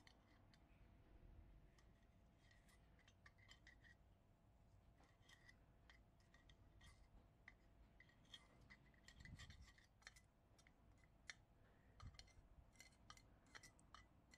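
Faint clicking and scraping of metal tweezers against the metal burner of a Coleman 508A gasoline stove as ceramic fiber is tamped into it, with a soft bump about nine seconds in.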